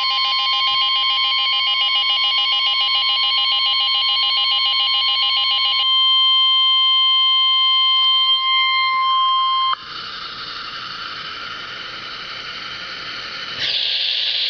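Weather-radio emergency alert signal: a steady high 1050 Hz warning alarm tone, with a fast warbling electronic alarm over it for roughly the first six seconds. The tone cuts off about ten seconds in, leaving radio hiss that gets louder near the end.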